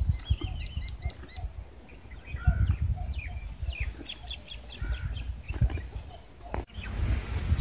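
Birds chirping in short, quick calls that slide up and down, over an irregular low rumble and thumping. Near the end a sharp click is followed by a brief hiss.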